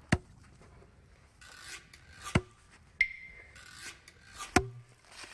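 Long-handled axe striking the hard salt crust three times, about two seconds apart, as the crust is cut into rows. Short gritty scrapes of salt come between the strikes.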